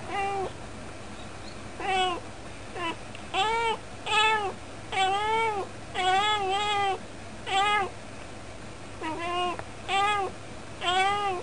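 Calico cat meowing in a long run of about a dozen short calls, each rising and falling in pitch, with brief pauses between them.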